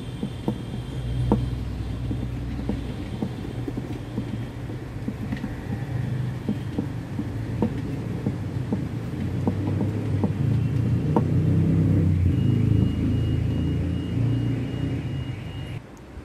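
Stainless steel pot being spun by hand on a wooden stool top: a low, uneven rumble with scattered light clicks as the metal base turns on the wood. It stops shortly before the end, when the turning stops.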